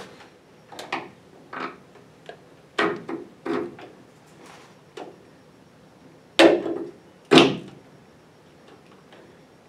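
Short knocks and clicks of a chrome tail light bezel being handled and pressed into place against the lens and tail panel of a 1968 Mustang, the two loudest about six and a half and seven and a half seconds in.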